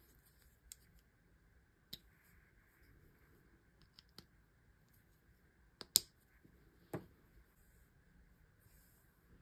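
A handful of short, sharp plastic clicks from handling the cable and black plastic cord lock of a neck-massage pillow, the loudest about six seconds in.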